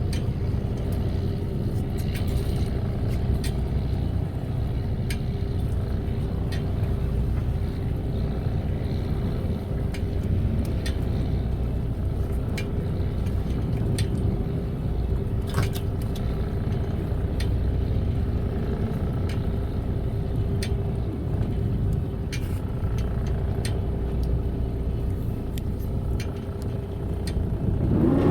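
Fishing boat's engine running steadily: a low rumble with a constant hum, with scattered light clicks and taps over it.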